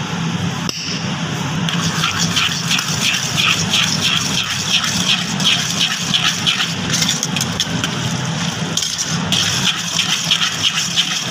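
Spice and food-colour paste being stirred briskly in a bowl with a metal utensil: rhythmic scraping strokes, about three a second, with a pause of a couple of seconds in the middle, over a steady low hum.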